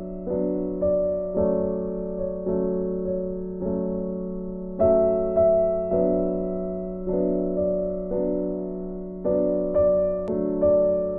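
Background music: a gentle piano tune, its notes struck about once or twice a second and left to fade.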